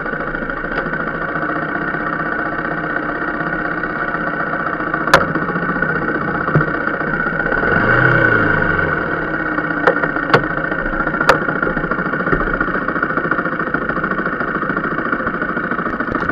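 Rieju Marathon Pro supermoto engine idling steadily. A louder sound swells and fades about halfway through, and there are a few sharp clicks.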